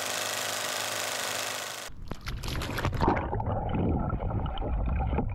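A steady hiss with a low hum for about two seconds, then splashing, bubbling and gurgling water heard through a GoPro mounted on a kayak's bow as the upside-down kayak is rolled. The sound turns muffled and dull once the camera is under water.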